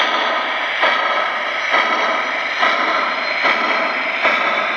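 Sound system of a Lionel VISION GS-4 O gauge model steam locomotive playing steam-engine sounds through its speaker: a steady steam hiss with a chuff a little more often than once a second, as the model moves slowly.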